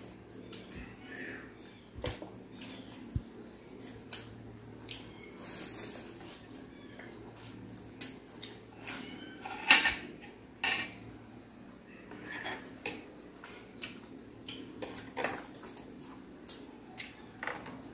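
Cutlery clinking and scraping on plates and a wooden board while a crispy pata is pulled apart: irregular sharp clicks and knocks, the loudest about ten seconds in, with softer chewing sounds between.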